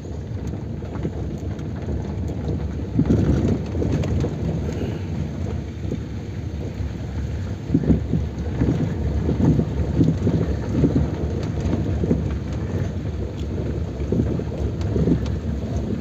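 Wind buffeting the microphone: a low, uneven rumble that surges about three seconds in and again from about eight seconds on.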